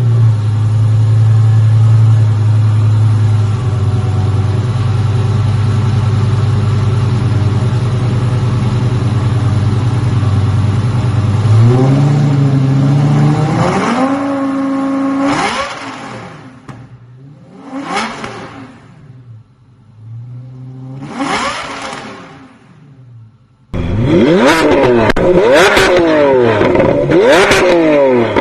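Lamborghini supercar engine held at a steady fast idle, then revved up in steps about twelve seconds in, followed by three short blips of the throttle with quiet gaps between. Near the end it starts abruptly into a loud stretch of rapid revs rising and falling over one another.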